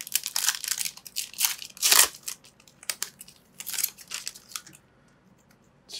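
Foil wrapper of a Pokémon Evolutions booster pack being torn open and crinkled by hand: a quick run of crackling tears and rustles, the loudest about two seconds in, dying away about five seconds in.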